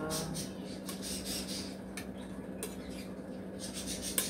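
Metal spoon clinking and scraping against a stainless steel stockpot as soup is stirred, with one sharper clink near the end. A steady low hum runs underneath.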